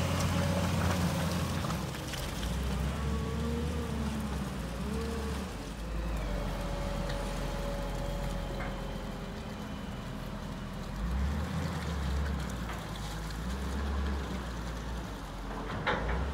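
Caterpillar 930G wheel loader's diesel engine running as the machine drives, its low note shifting up and down a few times, with tyres on wet pavement. A few short clicks come near the end.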